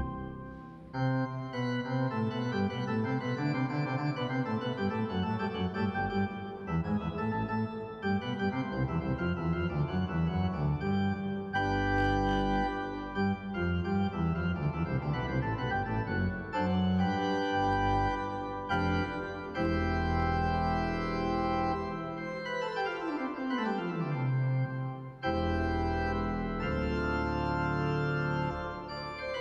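Church organ playing closing music after the dismissal at the end of Mass: sustained full chords over a deep bass, with a falling run of lower notes twice near the end.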